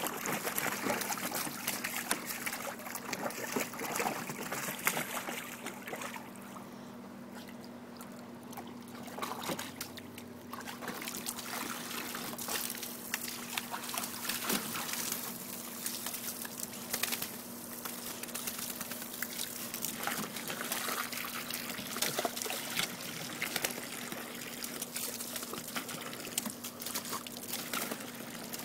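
Water running from a garden hose into a plastic kiddie pool, with small splashes as wet dogs move about in the water. It goes quieter for a few seconds about a quarter of the way in.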